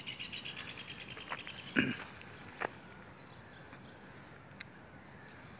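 A jilguero finch singing: a fast buzzy trill at first, then, after a short gap with a few knocks, a run of high, quick downward-sweeping notes. A knock about two seconds in is the loudest sound.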